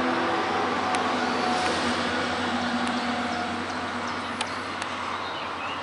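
A motor vehicle's engine hum with road noise, slowly fading, with a few faint clicks.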